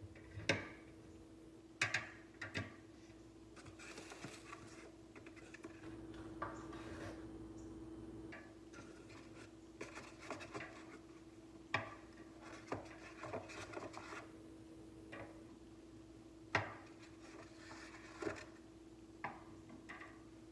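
Black wire egg basket being handled: the hen-shaped lid lifted off and eggs set into the base, giving irregular light clicks, knocks and wire rattles.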